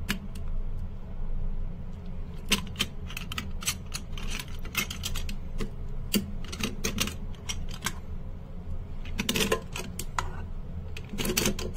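Irregular metallic clicks and clatter as the jaw of a Ridgid 1017 telescoping basin wrench is fitted and pivoted around a plastic threaded nut by hand, over a steady low hum. The loudest clusters of clicks come about two-thirds of the way through and near the end.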